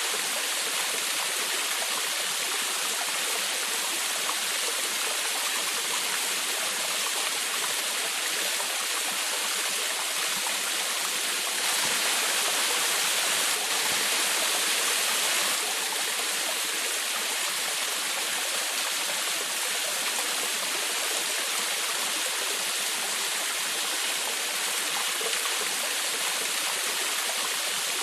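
Small forest waterfall, water rushing and splashing steadily, swelling slightly for a few seconds about twelve seconds in.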